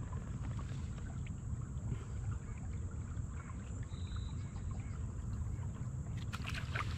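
Steady low rumble of water and wind noise on a fishing kayak, with a few light clicks and knocks near the end.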